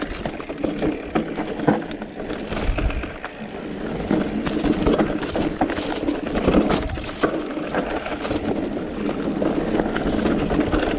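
Riding noise of a Giant Reign E+ electric mountain bike on a dirt forest trail: a steady rush of tyres rolling and wind, with frequent short clicks and rattles as the bike jolts over bumps.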